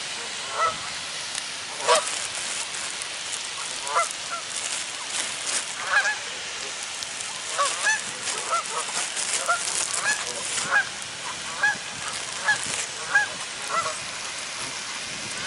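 Geese honking over and over, short calls coming every second or so, as they crowd around to be fed bread.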